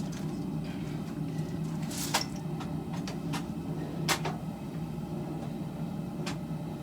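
Steady low roar of a running propane forge, with three short sharp clicks or knocks about two, four and six seconds in.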